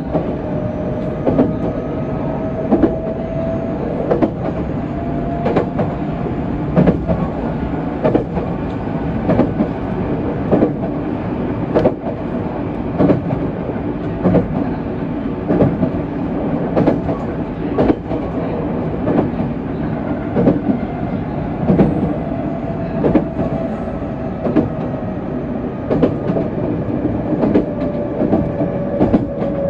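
JR West 207 series electric train running along the line: a steady rumble of the running gear, with the wheels clicking over rail joints at uneven intervals and a faint motor whine that comes and goes.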